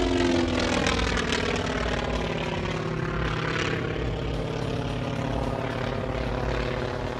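North American T-28B Trojan's nine-cylinder radial engine and propeller running at high power as the plane climbs vertically, a steady note that slowly fades.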